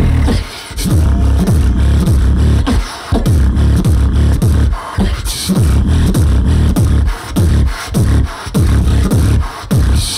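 Beatboxing through a handheld microphone and stage PA: deep bass kicks that drop in pitch, with sharp snare and hi-hat clicks in a fast, driving rhythm.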